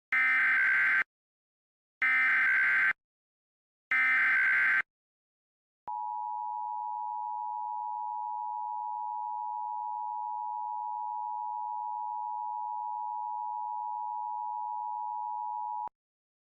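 Emergency Alert System opening tones: three one-second bursts of warbling SAME header data, which encodes the tornado warning, about two seconds apart. After a short gap comes the steady two-tone EAS attention signal, held for about ten seconds and cut off sharply.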